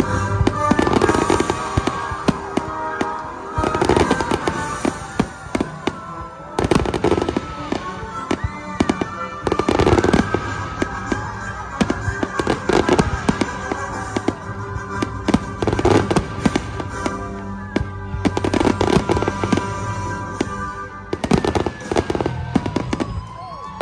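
Aerial firework shells bursting one after another, heavy bangs every second or two with dense runs of crackling pops between them, over music playing throughout.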